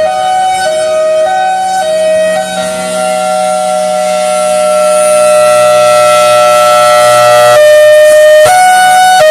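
Federal Signal Thunderbolt 1003 outdoor warning siren sounding its hi-lo signal, two notes alternating about every 0.6 s. About two and a half seconds in it changes to a steady held tone for about five seconds, then goes back to the alternating hi-lo near the end.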